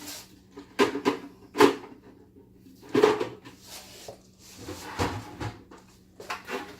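Parts of a bulk candy vending machine knocking and clattering as they are handled and fitted together: a few sharp knocks spaced a second or two apart, with a short scrape between them.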